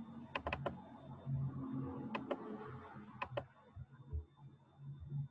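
Sharp clicks from operating a computer, in three quick pairs, as a presentation is switched into slideshow view. A faint steady high whine runs underneath.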